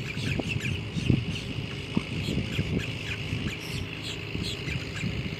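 Many small birds chirping in short, scattered calls over a steady high hiss, with a low rumbling noise underneath.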